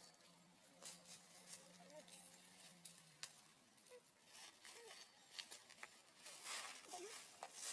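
Near silence with faint rustling, scattered clicks and a few brief, faint squeaks from monkeys.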